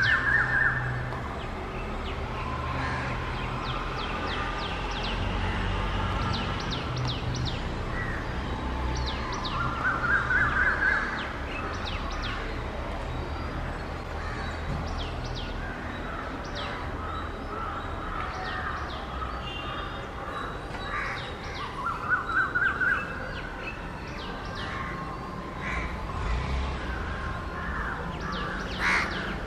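Morning birdsong with crows cawing and small birds chirping. A call that climbs in pitch over about a second comes round about every ten seconds. A low steady hum lies underneath.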